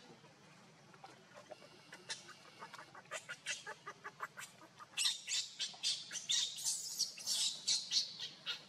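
Newborn baby macaque crying: soft, rapid chirping whimpers that break about five seconds in into loud, repeated high-pitched squealing screams several times a second, the distress cries of an infant separated from its mother's body.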